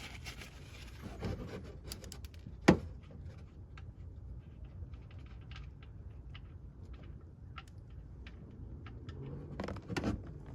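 Scattered metallic clicks and light knocks as a 14 mm socket cracks loose the oil drain plug on the oil pan, with one sharp click a little under three seconds in.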